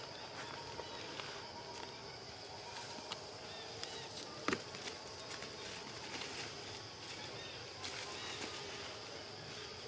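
Outdoor ambience: faint scattered chirps over a steady high-pitched hum, with one sharp click about four and a half seconds in.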